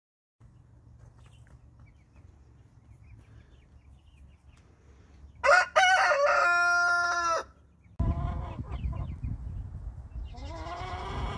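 A rooster crows once, loud and about two seconds long, about halfway through. After that, chickens make shorter pitched calls and clucks over a low rumble.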